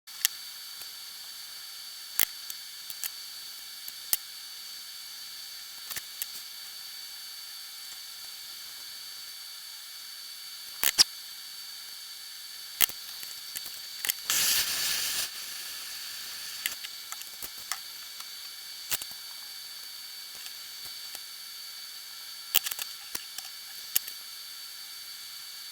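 Scattered small clicks and taps of small metal parts and tools being handled on a workbench during soldering work, with one short hiss of about a second halfway through, over a steady background hiss with a faint high tone.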